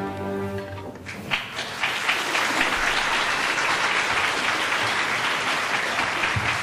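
Audience applauding in a theatre, breaking out about a second in as the orchestra's final held chord dies away.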